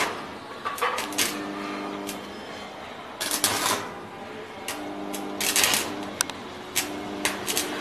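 Electric arc welding on a steel lift guide-rail bracket: the arc crackles and sputters irregularly, with louder bursts near the start, at about three seconds and at about five and a half seconds, over a faint steady hum.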